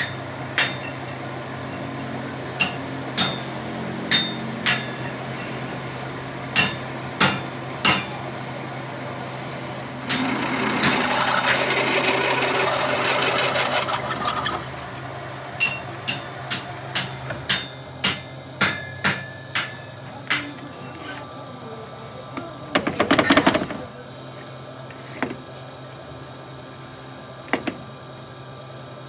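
Manual lathe running with a twist drill boring into a spinning metal workpiece: a steady motor hum, many sharp clicks scattered through it, and a louder rough cutting noise about ten seconds in that lasts some four seconds. A short loud burst of noise comes about two-thirds of the way through.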